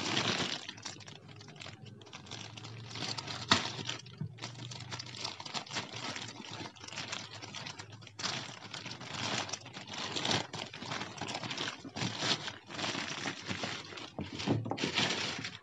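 Plastic courier mailer bag crinkling and rustling as hands tear it open and work it loose, with irregular sharp crackles throughout and one louder snap about three and a half seconds in.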